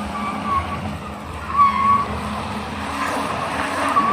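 Car's tyres spinning and squealing on a steep hill climb over a steady engine note, with short squeals at the start, a louder one about a second and a half in, and another near the end: the car is struggling for grip and not making it up the slope.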